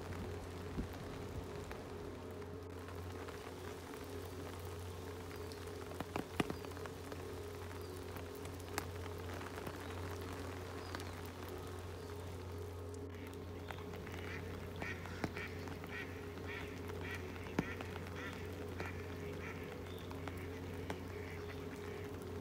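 Steady rain with occasional close drops ticking sharply. From about halfway through, a mallard quacks repeatedly, a few quacks a second.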